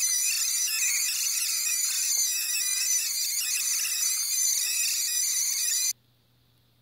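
Promark GPS Shadow quadcopter's motors and propellers heard in fast-forward, sped up into a high, wavering squeak that sounds like a squeaky shopping cart wheel. It cuts off abruptly about six seconds in.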